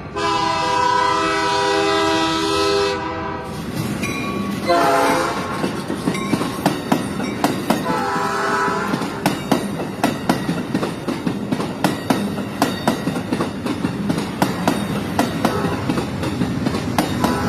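Train horn blowing a long blast of about three seconds, then shorter blasts, while the wheels click over rail joints in a steady, quick rhythm.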